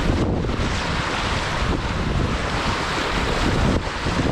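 Wind buffeting the microphone over water rushing and splashing along the hulls of a catamaran sailing fast. The hiss is steady and loud, dipping briefly just after the start and again near the end.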